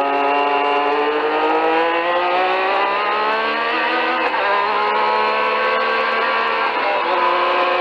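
Onboard sound of the 1983 Renault Formula 1 car's turbocharged 1.5-litre V6 under full acceleration out of a corner. Its note climbs steadily, changes with an upshift about four seconds in, then holds steadier at speed down the straight.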